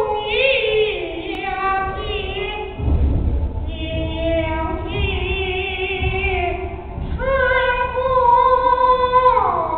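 Male Peking opera student singing a woman's (dan) role in a high falsetto voice. He holds long notes with a wavering vibrato and slides slowly between pitches, with a long falling slide near the end.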